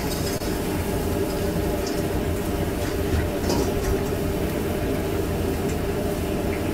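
Steady low hum of kitchen equipment running in a small food-trailer kitchen, with a few faint clinks and scrapes of a metal utensil working food on a flat-top griddle.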